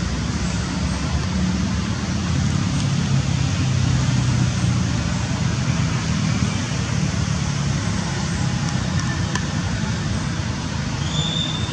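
Steady road traffic noise, with an engine running nearby as a low hum under an even hiss. A brief high chirp sounds near the end.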